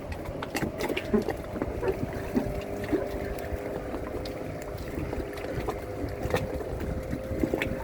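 Muffled water noise with scattered small clicks and crackles over a faint steady hum.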